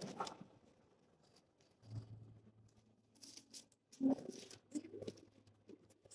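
Faint, scattered rustling and soft clicks of Bible pages being leafed through while the passage is looked up.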